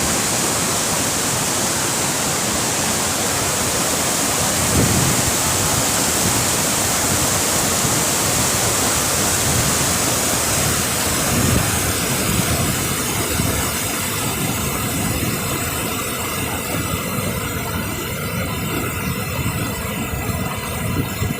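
Steady rushing roar of a tall, heavy waterfall, loud and close. About halfway through the high hiss thins out and the roar sounds a little duller.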